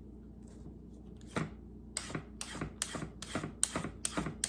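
Vegetable peeler scraping down a carrot, taking off ribbons in quick strokes about four a second after a single stroke.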